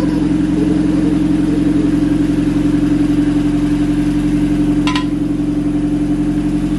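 Turbocharged Honda Civic engine idling steadily, with a single short click about five seconds in.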